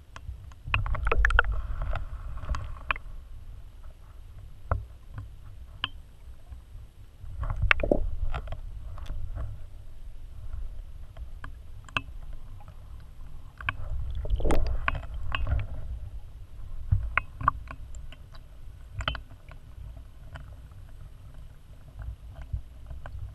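Muffled underwater sound heard through a submerged GoPro's waterproof housing: an uneven low rumble of water moving around the camera that swells and fades, with scattered clicks and knocks.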